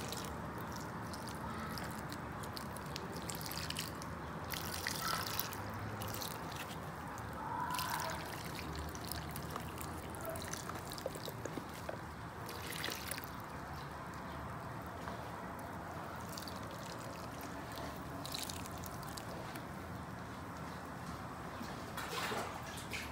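Water poured from a plastic container trickling and dripping onto the soil of freshly planted flowers, their first watering after planting. A few brief knocks come through now and then.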